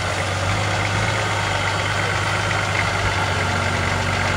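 Competition 4WD truck's engine running steadily at idle, a constant low hum.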